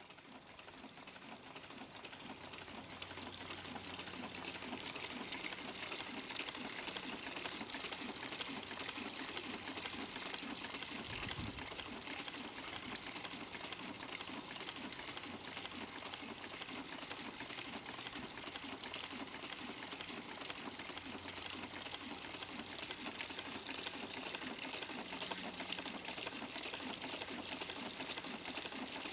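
Small 4-inch Rider hot air pumping engine running, its pistons and linkage clattering in a fast, steady rhythm, with water splashing from its outlet pipe into a bucket.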